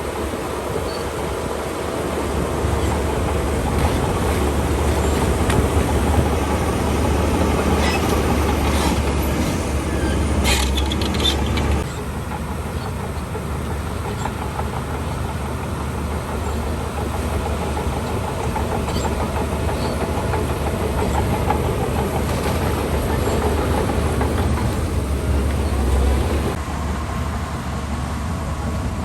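Shantui DH17 C2 bulldozer at work: its diesel engine runs steadily under load and its steel tracks clatter. The engine is louder for the first dozen seconds and again briefly near the end, and there are a few high metallic squeals about ten seconds in.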